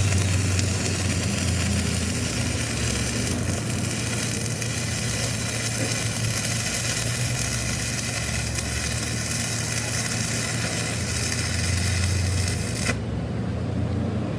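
Steady machinery running in a metalworking shop, with a low hum under a hiss; the hiss drops away suddenly near the end while the hum continues.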